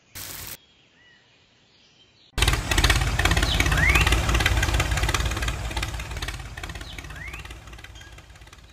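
Tractor engine running: it starts abruptly about two and a half seconds in and slowly fades as the loaded toy tractor drives away. A brief hiss comes at the very start, and birds chirp a few times.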